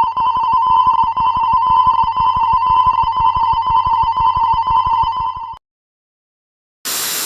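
Railroad crossing warning bell ringing rapidly and steadily, then cutting off abruptly about five and a half seconds in. After a second of silence, a loud hiss-like noise starts near the end.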